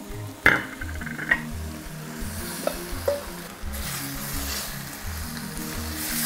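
Marinated steak tipped into a hot pot of oil and browned onions, sizzling as it hits the pan and is scraped and stirred in. A sharp knock comes about half a second in, and the sizzling grows louder from about two seconds in.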